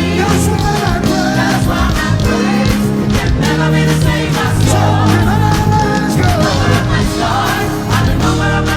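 Live gospel praise band playing with bass guitar and drums under group singing.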